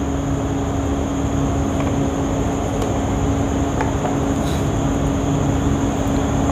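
Steady mechanical hum with a constant low tone and a thin high whine, like a running fan or air-conditioning unit, with a few faint soft ticks.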